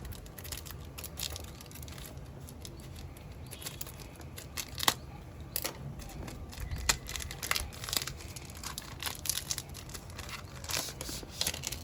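Coin-set packaging being handled and opened: crinkling, rustling and tearing with irregular sharp clicks, the loudest about five seconds in.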